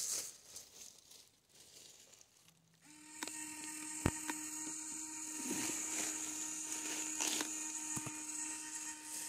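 Quiet for about three seconds, then the radio-controlled crawler truck's small electric drive starts a steady whine that holds at one pitch, with a few sharp clicks over it.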